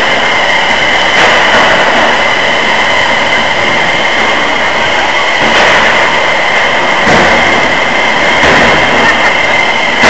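Combat robot machinery running: a steady high whine from a spinning drum weapon, with the grind of the robots' drive motors.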